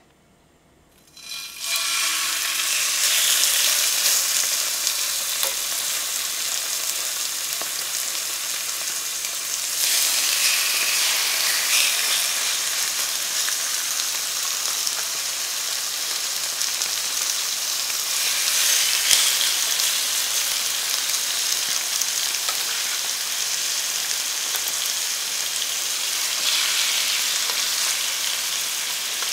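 Boneless chicken thigh fillets searing in hot olive oil in a stainless steel pot: a loud, steady sizzle that starts about a second and a half in. It swells three more times as further pieces are added.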